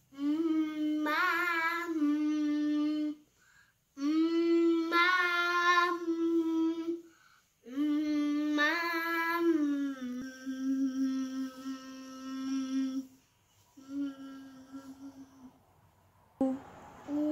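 A young boy vocalizing a warm-up exercise: held sung notes in phrases of a few seconds, with short breaths between them. The pitch steps up slightly within the early phrases and settles on a lower note in the later ones.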